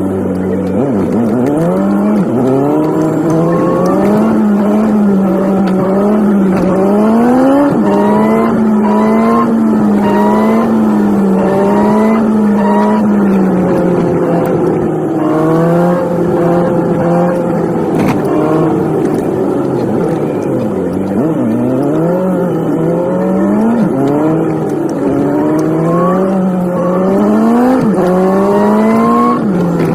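Nissan 180SX engine sped up to 3.5 times normal speed, its pitch repeatedly climbing and then dropping sharply as it accelerates and changes gear, with a steadier cruising stretch in the middle.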